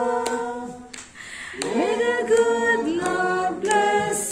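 A group of voices singing a birthday blessing song unaccompanied. The singing drops away briefly about a second in, then picks up again with the next line.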